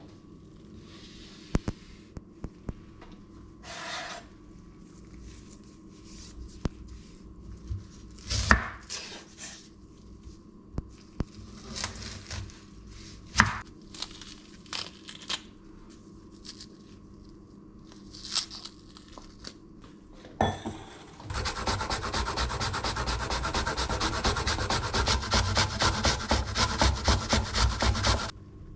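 An onion handled, trimmed and peeled on a wooden chopping board: scattered sharp knocks on the board and papery rubbing of the skin. From about 21 seconds in, the peeled onion is grated on a metal hand grater over a stainless steel bowl, in rapid, even scraping strokes that are the loudest part.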